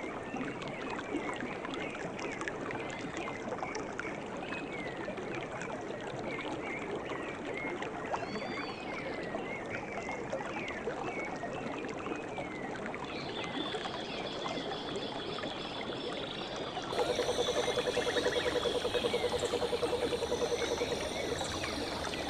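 Flowing river water with many short bird chirps over it. About three-quarters of the way through the recording changes abruptly, and a louder, rapid pulsing trill joins the water for a few seconds.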